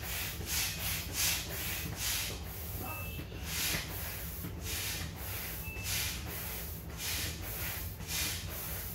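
Manual air pump inflating a K2 inflatable kayak: a rhythmic hiss of air, about two strokes a second, with a brief pause about a third of the way in.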